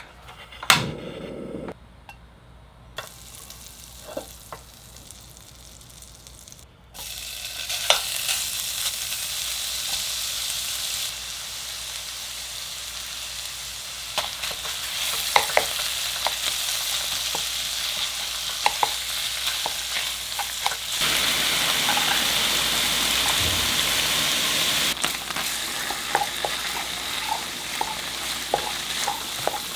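Food sizzling in a buttered frying pan while being stir-fried, with a spatula clicking and scraping against the pan. The sizzle starts suddenly about seven seconds in, as food goes into the pan, and gets louder again about two-thirds of the way through.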